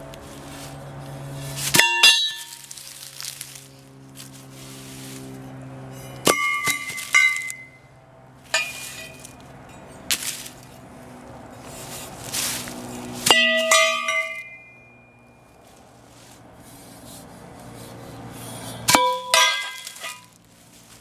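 Metal parts set down one after another: a steel bracket and aluminium pipes clanking and ringing briefly, about seven times, with short gaps between the strikes.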